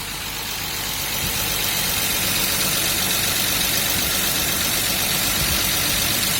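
BMW M50B25 straight-six idling just after its first start, all its hydraulic lifters clattering at once, "like a tractor": the lifters have drained of oil and have not yet pumped back up. The running gets a little louder about a second in, then holds steady.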